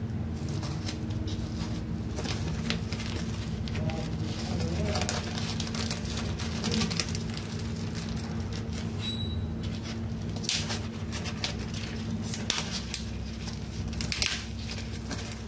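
Thin plastic food-prep gloves crinkling and rustling in irregular bursts as fried meat is handled and wrapped in leaves, with a few sharper crackles near the end, over a steady low hum.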